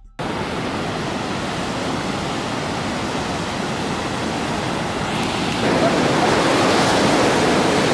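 Sea surf breaking on a beach: a steady rush of waves that grows louder about five and a half seconds in.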